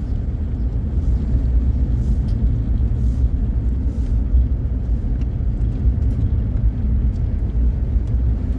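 Steady low rumble of a car in motion, engine and road noise heard from inside the cabin.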